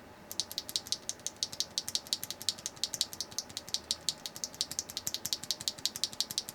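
HMX Snow Crash rail bottom-out linear mechanical keyboard switch pressed over and over, giving a quick run of light, high clacks, several a second. It is a rail bottom-out design, so it lacks the loud, clacky bottom-out of most HMX switches.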